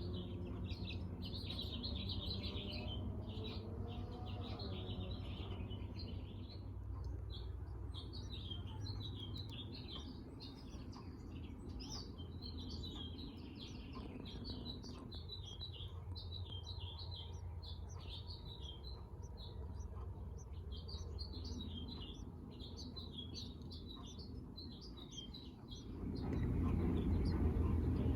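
Small birds chirping: quick, high chirps in rapid runs with short pauses between them, over a faint steady low hum. A louder low noise comes up near the end.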